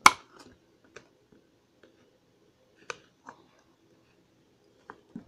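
Pudding slime squeezed and kneaded in the hand, giving a few scattered small clicks and pops, with a louder sharp click right at the start.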